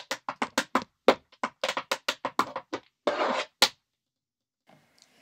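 Tap shoes dancing on a wooden floor: a quick, uneven run of sharp metal taps for about three seconds, then a short scrape of the shoe and one last tap before the feet stop.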